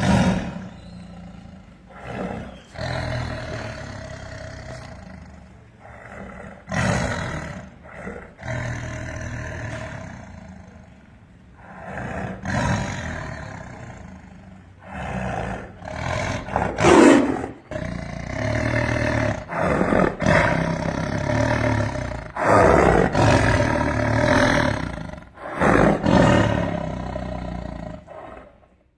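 A boy imitating a big cat's roar with his voice: a long series of rough roars and growls with short pauses between them, the loudest about halfway through.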